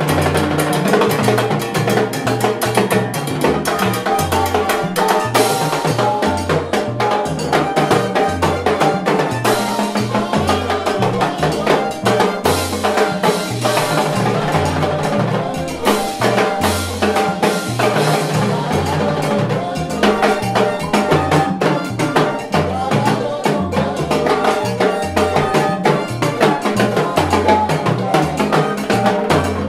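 Salsa band playing, led by two timbaleros soloing together on metal-shelled timbales and cymbals with fast, dense stick strokes over a repeating bass line.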